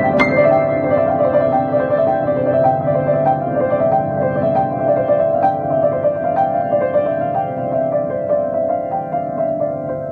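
Solo piano improvisation: a repeating figure of single notes over held lower notes, ringing on. It begins to fade in the last couple of seconds.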